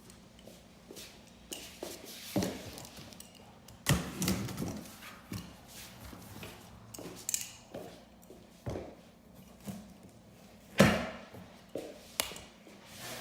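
Handling noise: a series of irregular knocks and thunks as objects are moved about, with a sharper, louder knock about eleven seconds in.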